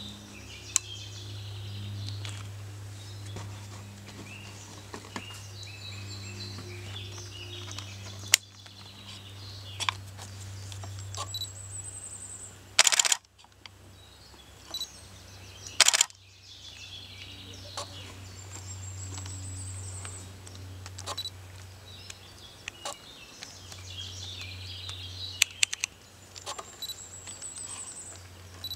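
Woodland birds chirping and singing, including a high rising trill repeated about three times, over a low steady hum. Several sharp clicks stand out, the loudest two near the middle.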